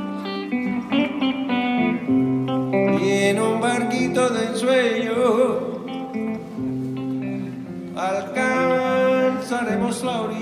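Acoustic guitar played live, picking and strumming a melodic instrumental passage. A voice joins in with wavering, wordless held notes in the middle and again near the end.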